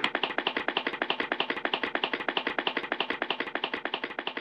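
Rapid, even running footsteps, dubbed in as a comic sound effect: a quick train of sharp taps that slowly fades as the runner goes off into the distance.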